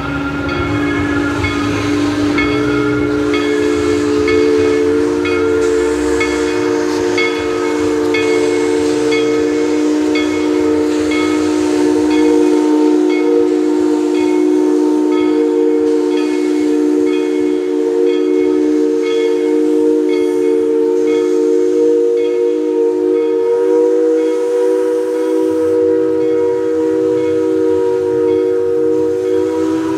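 Steam locomotive's chime whistle blown in one long, unbroken chord of several tones, with a faint ringing beat about once a second.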